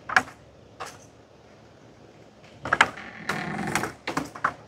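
Plastic handling clicks and knocks from a small folding quadcopter and its remote as the drone is turned over by hand for compass calibration. There is one sharp click at the start and another just under a second in, then a busier run of knocks and rubbing from about two and a half seconds in.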